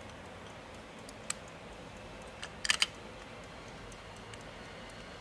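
A few sharp clicks and taps from handling a brass carriage alarm clock, one single click and then a louder quick cluster a little past halfway, over a faint steady hiss.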